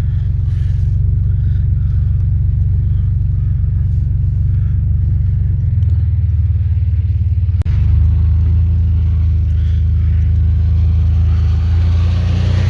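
Vehicle engine running steadily at low speed with a low rumble; about eight seconds in it briefly dips and then settles at a slightly different pitch, as when the engine speed changes.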